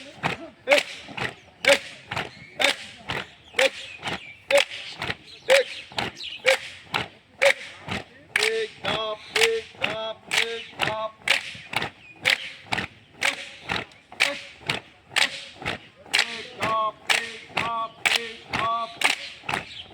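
A group clapping hands overhead in unison, a sharp clap about twice a second, with short shouted drill counts from many voices between the claps.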